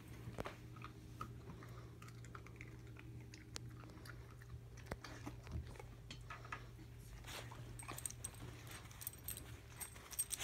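A dog chewing a treat: faint, scattered crunches and small clicks.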